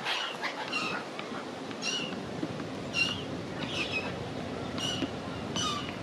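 Black-headed gulls calling: short calls repeated about once a second, over a steady background noise.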